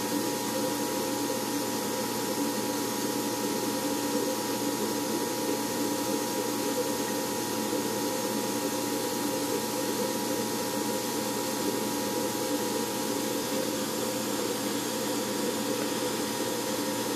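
Steady machine hum and hiss with a couple of fixed tones, unchanging throughout.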